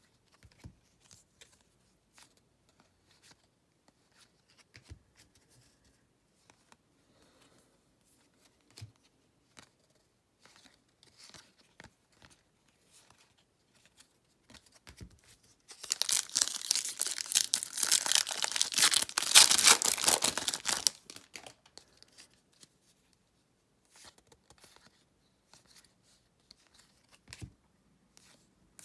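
A baseball card pack's wrapper being torn open and crinkled: a loud tearing rustle lasting about five seconds midway. Before and after it, soft clicks and slides of trading cards being flipped through in the hand.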